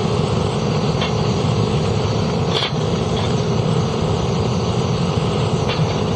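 Propane torch burning steadily with a constant rushing noise as it heats a crucible to melt zinc. A few light clicks sound over it.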